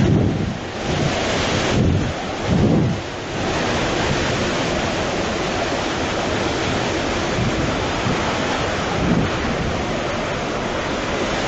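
Hurricane wind blowing hard. In the first three seconds or so, strong gusts buffet the microphone; after that there is a steady, even rush of wind.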